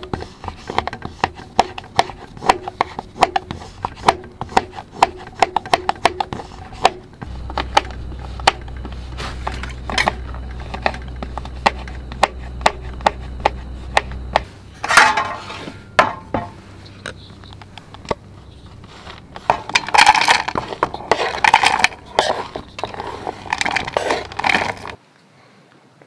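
A kitchen knife shaving and chopping a bar of chocolate on a wooden cutting board: quick runs of small scraping clicks, then louder crunching cuts later on. A low steady hum runs through the middle, and everything stops abruptly near the end.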